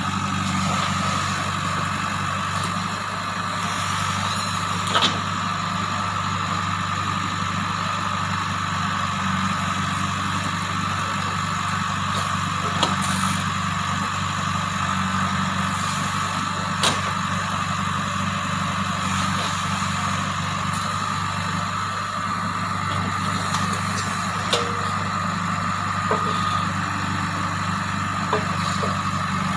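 JCB 3DX backhoe loader's diesel engine running steadily, with a few sharp knocks scattered through.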